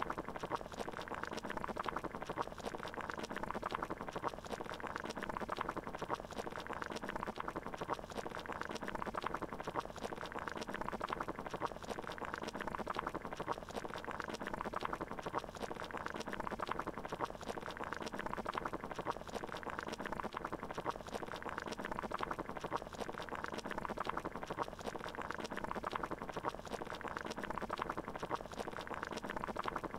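Water boiling, a steady dense bubbling that does not change.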